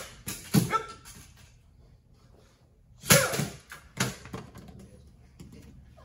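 Katana cutting through an upright bamboo pole: two clusters of sharp swishes and cracks about three seconds apart, with short sharp shouts among them.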